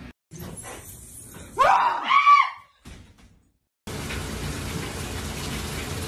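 A person gives one short, loud scream, rising and then falling in pitch, about a second and a half in. After a moment of silence, a steady hiss of running water starts, a top-loading washing machine filling.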